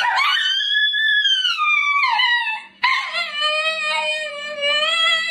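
A dog howling: two long howls, the first rising then falling, the second lower and steadier, wavering before it drops away near the end.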